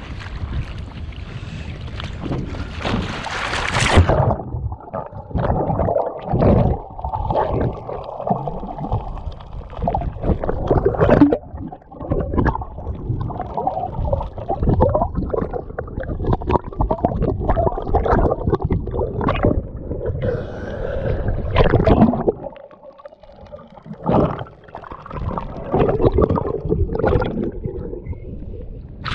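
Water sloshing and splashing with wind on the open-air microphone. About four seconds in, the sound turns suddenly muffled as the camera goes underwater: irregular gurgling and sloshing with dull knocks, heard through the submerged camera.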